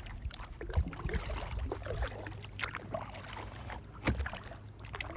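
Sit-in kayak being paddled on a river: the paddle dipping and splashing in the water, with irregular small knocks and drips and a louder knock about four seconds in.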